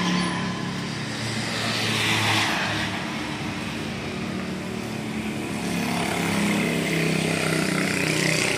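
Motorbike and road traffic going past on the street, engines rising and falling, with two louder pass-bys about two seconds in and near the end.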